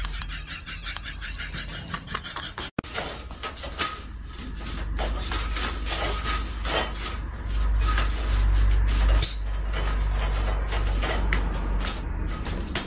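Venetian blind slats clicking and clattering as a cat pushes and paws among them: many quick, irregular clicks over several seconds.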